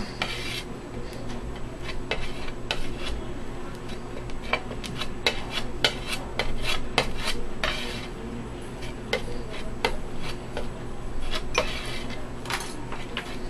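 Steel palette knife scraping a paste of pigment and linseed oil across a glass slab, with frequent irregular clicks and taps of the blade on the glass.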